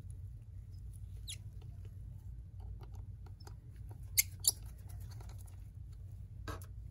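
Light scattered clicks and ticks of a small screwdriver and screws being worked at a MacBook Air's cooling fan, over a low steady hum. Two sharper ticks come close together about four seconds in, and another comes near the end.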